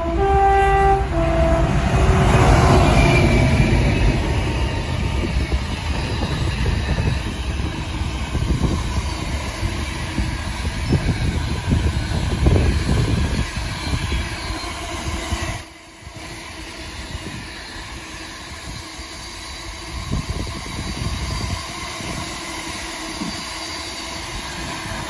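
Locomotive-hauled container freight train passing. The locomotive sounds a two-tone horn, high then low, in the first two seconds. The locomotive's engine and wheels then rumble loudly past, followed by the clickety-clack of the container wagons. The sound drops abruptly about two-thirds through, and the wagons roll on more quietly.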